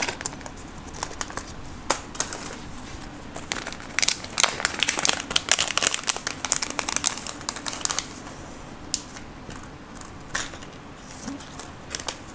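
Plastic anti-static parts bag crinkling as small components are taken out of it by hand, with a dense run of crackles from about four to eight seconds in and scattered clicks before and after.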